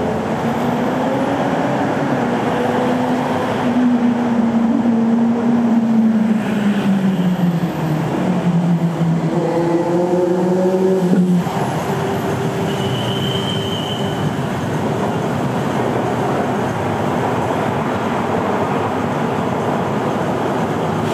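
Train running with a steady running noise. A pitched whine over it slowly falls in pitch and stops suddenly about eleven seconds in, as the train slows.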